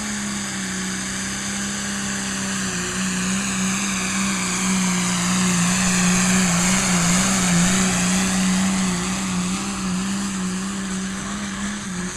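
Turbocharged Dodge Cummins diesel pickup running flat out under load while pulling the sled. The engine holds a high, steady note, with a high turbo whine above it that sweeps in pitch midway through.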